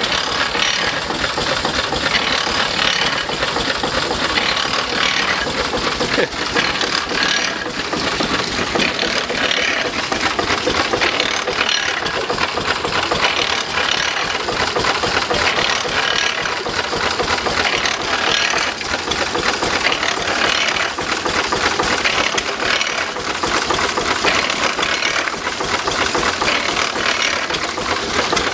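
Small hopper-cooled stationary engine running steadily, belt-driving a reciprocating water pump, with a fast mechanical clatter and pumped water splashing into a barrel.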